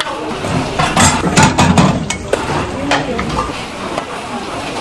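Stainless steel noodle strainer and bowls clanking and knocking as freshly boiled noodles are drained and tipped into bowls, with water running off. Several sharp metal knocks come in the first two seconds.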